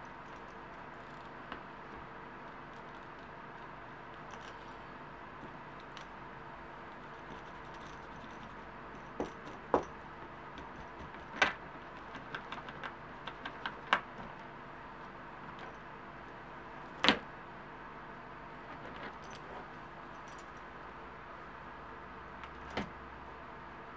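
Metal belt buckle clinking and tapping as the leather belt is wiped with a cloth and handled. A few sharp clicks are scattered through the middle, with one more near the end, over a faint steady hum.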